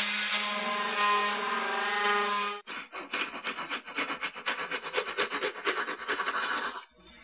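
Random orbital sander running steadily on a pine block with 220-grit paper. About two and a half seconds in it gives way to a hand saw cutting through a wooden dowel in quick back-and-forth strokes, about five a second, which stop shortly before the end.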